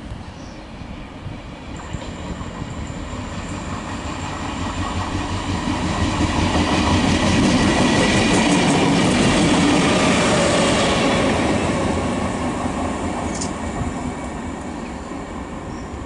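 Network Rail Multi-Purpose Vehicle passing: diesel engine and wheels on the rails building up, loudest about eight to ten seconds in, then fading as it goes away. A thin high steady tone runs along with it, and there is a single sharp click near the end.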